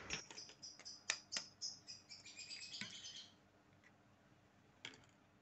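Eggs being tapped and cracked on the rim of a stainless steel bowl: a string of faint clicks and taps over the first three seconds and one more near the end. High-pitched chirping runs over the first three seconds.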